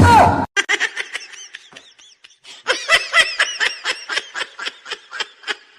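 A person laughing in a quick run of short, high-pitched bursts, about four or five a second, getting louder about halfway through. It follows a brief loud sound that falls in pitch at the very start.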